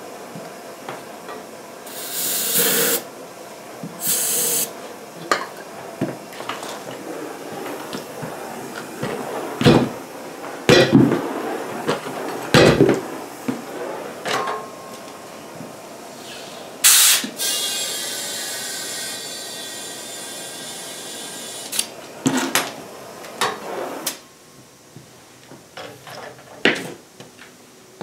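Ether starting fluid sprayed into a garden-tractor tire in two short hissing squirts. Then come several heavy thumps, from the ether lighting inside the tire and the tire being kicked to seat its bead on the rim. About seventeen seconds in a loud blast of compressed air begins, fading over a few seconds as the tire is inflated quickly so the bead stays seated.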